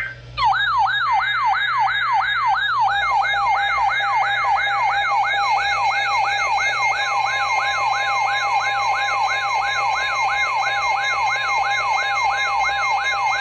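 Electronic siren-style alert tone: a falling wail repeating a little over twice a second, layered over steady higher tones. It is the alarm sounding for a new severe thunderstorm warning.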